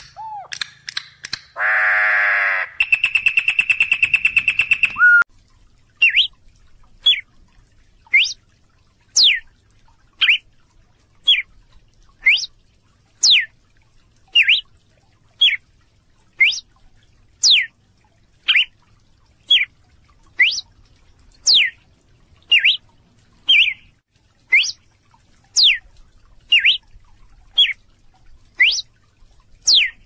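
Campo troupial singing: whistled notes, a harsh note and a fast trill. After about five seconds this gives way to a red-cowled cardinal repeating a short, sharp note very regularly, about once a second.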